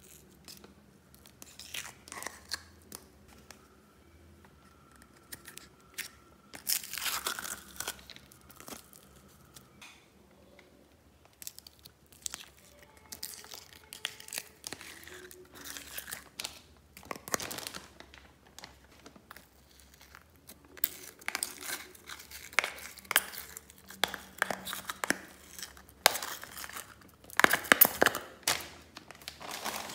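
Thin plastic slime containers and a plastic garbage bag crinkling and crackling as they are squeezed and handled, in irregular bursts, loudest about seven seconds in and again near the end.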